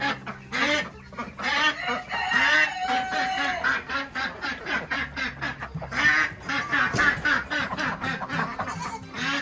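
A small flock of domestic ducks quacking, many short calls following one another and overlapping.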